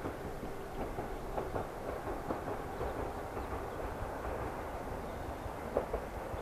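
A train running on rails out of sight: a steady low rumble with scattered, irregular wheel clicks.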